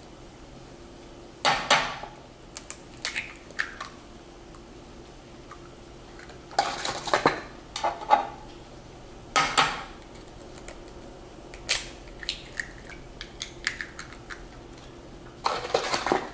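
Raw eggs being knocked and cracked against the rim of a glass mixing bowl, with clinks of shell and glass: a series of short sharp knocks in several clusters.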